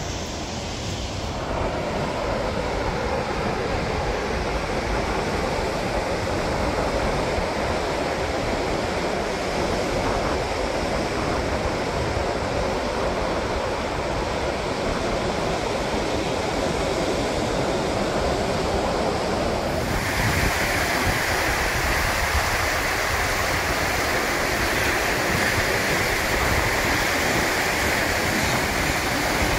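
Surf washing onto a sandy beach: a steady hiss of breaking waves, with wind rumbling on the microphone. About two-thirds of the way through, the sound changes suddenly to a brighter, higher hiss.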